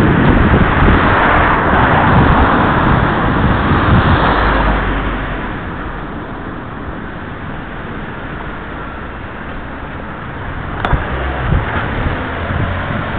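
Road traffic on a city street: an even noise of passing cars, louder for the first four seconds or so as a car goes by, then settling lower. There is one sharp click about eleven seconds in.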